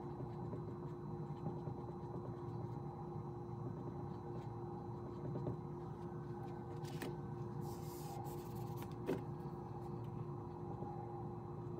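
Steady low hum of room tone with a couple of faint steady tones in it. About eight seconds in, a second of scratchy rubbing from a dry-erase marker on the whiteboard, then a sharp click just after.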